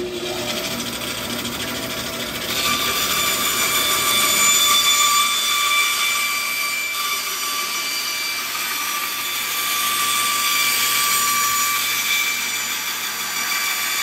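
Bandsaw cutting through the hard plastic shell of a ski boot, running steadily with a high whine. It gets louder about two and a half seconds in, as the blade bites into the plastic.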